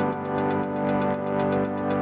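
Electronic background music: sustained synthesizer chords over a steady beat.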